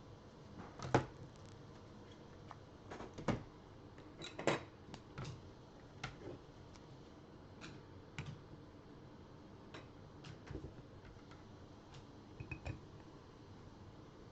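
Trading cards and their holders being handled on a table: scattered light clicks and taps at irregular intervals, a few sharper than the rest.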